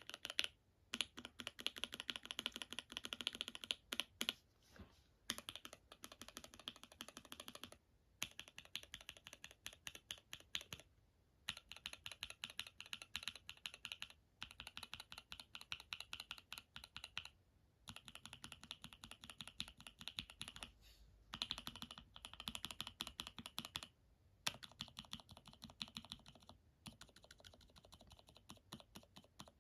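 Mechanical keyboard switches in a switch tester, typed on rapidly with keycaps: runs of fast key clacks about three seconds long, each from a different switch, split by short pauses about ten times.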